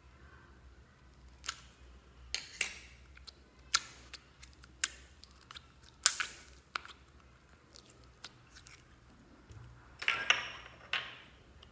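Store-bought yellow slime being pressed and worked inside its small plastic container, giving irregular sticky clicks and crackles of slime and plastic, with a denser burst of crackling about ten seconds in.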